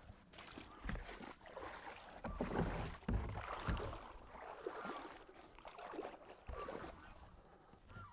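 Pond water sloshing and splashing in irregular surges as a person wades in waders and lowers a wooden door flat onto the surface.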